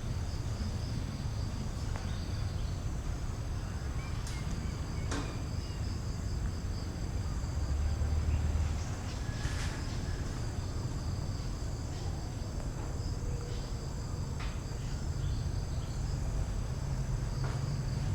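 Steady high-pitched insect chorus, shrill and continuous, over a low rumble, with a few brief clicks or snaps scattered through.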